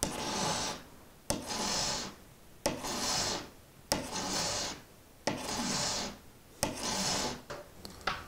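Hand file rasping along the side of a steel game-fishing hook in slow, long strokes, about six of them roughly one every 1.3 s, each starting with a sharp tick as the file bites. The file is thinning the hook's profile behind the barb for better penetration.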